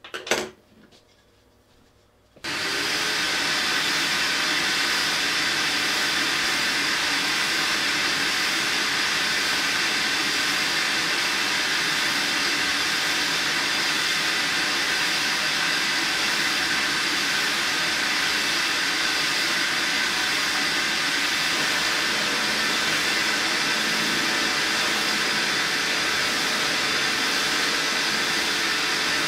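A click, then about two and a half seconds in a bench drill press switches on and runs steadily with an even rushing noise while it drills 9 mm holes through a wooden block.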